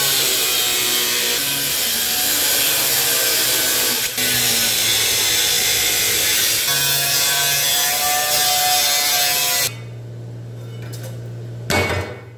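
Power tool cutting into the rusty sheet-metal floor of a 1976 Ford Bronco, running steadily for about ten seconds and then stopping, with one short burst of cutting near the end.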